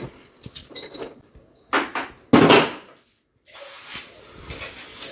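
Metal knocks and clunks of an adjustable wrench and the split AC indoor unit's copper pipe being handled, loudest about two and a half seconds in. After a brief break a steady faint hiss begins: the factory nitrogen holding charge escaping as the cap on the pipe end is loosened.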